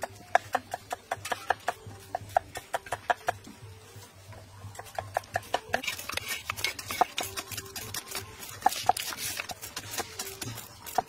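Steel cleavers chopping fresh lemongrass stalks on a round wooden chopping block: a run of quick, sharp knocks, with a short lull around the middle and faster chopping after it.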